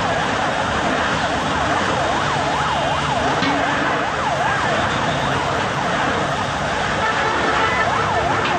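Emergency vehicle siren wailing in quick up-and-down sweeps, about two a second, over a steady background din.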